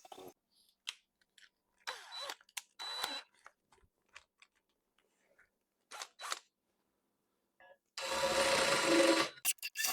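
Metal-cutting sounds from re-threading stripped bolt holes in the cast-iron belt housing to M10: short, irregular scrapes and clicks, then a louder, rougher stretch of about a second and a half near the end.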